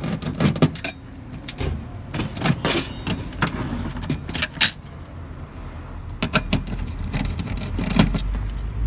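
Irregular light clicks and clattering from a circuit board, wires and parts being handled and moved on a workbench, over a low steady hum.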